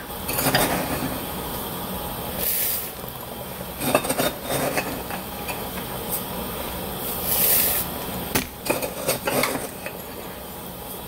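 Pot of rice syrup and water at a rolling boil on high heat, bubbling with a steady hiss, while coarse salt is tipped in from a paper cup: a short hiss of pouring salt every few seconds and a few knocks of the cup against the pot.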